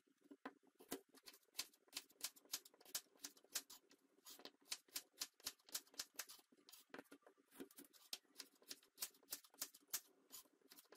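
Kitchen knife slicing carrots on a bamboo cutting board: a steady run of sharp chopping knocks, about three a second, with a brief pause about four seconds in.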